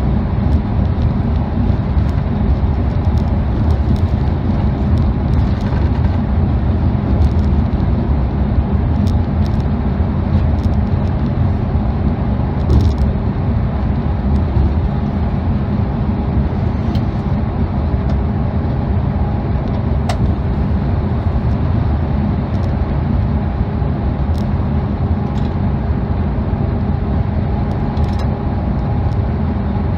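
Steady low rumble of engine and tyre noise heard from inside a highway coach cruising at speed, with a few faint clicks.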